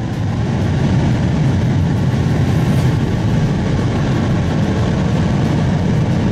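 Epsilon S second-stage solid rocket motor firing on a horizontal test stand: a loud, steady, deep rumbling roar that holds an even level throughout.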